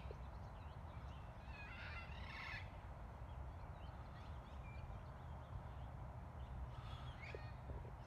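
Wild parrots squawking: a burst of harsh calls about two seconds in, scattered short calls, then another burst near the end, over a low steady rumble.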